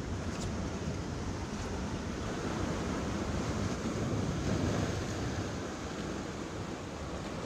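Small waves washing and breaking over a rock platform at the sea's edge, a steady rush that swells a little about halfway through, with wind rumbling on the microphone.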